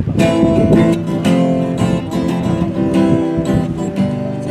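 Acoustic guitar strummed, chords starting just after the opening and going on in a steady rhythm of repeated strokes.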